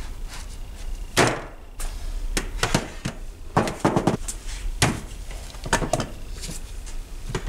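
Tomos A35 engine parts (crankshaft, starter shaft, gear) and wooden blocks being handled and set down on a sheet-metal workbench. About a dozen irregular knocks and clanks are heard, some close together, over a steady low hum.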